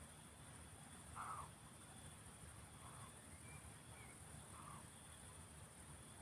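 Roe deer barking: three short, harsh barks about a second and a half apart, the first the loudest, over a steady high insect chorus.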